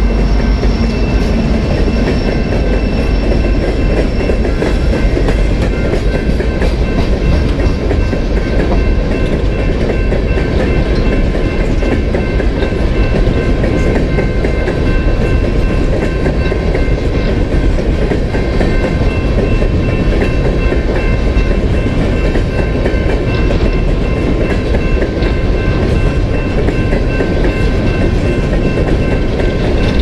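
A BNSF freight train's cars rolling past a grade crossing: a steady loud rumble and rattle with wheels clacking over the rails, under a continuous high ringing from the crossing signal. The locomotive's horn cuts off about a second in.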